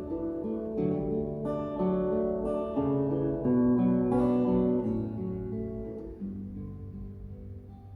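Acoustic guitar playing a picked instrumental passage between the sung lines of a slow ballad. The notes ring one into the next and grow quieter over the last couple of seconds.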